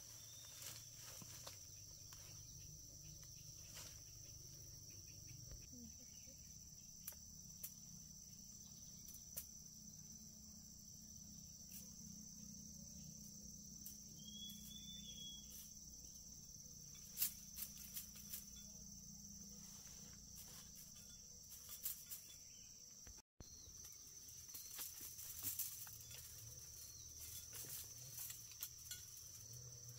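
Faint, steady high-pitched insect chorus, with scattered soft clicks and taps and one short chirp about halfway through.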